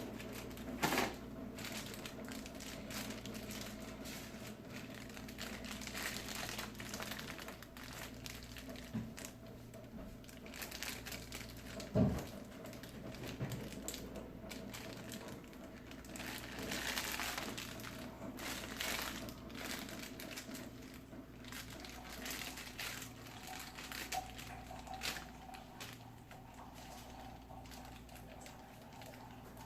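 Plastic packaging crinkling and rustling in the hands as the toy box's contents are handled. There are scattered small clicks throughout, with two louder knocks, about a second in and about twelve seconds in.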